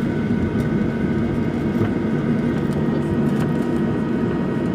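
Airliner cabin noise during landing: the steady rush of the jet engines and airflow, with a thin, steady whine on top.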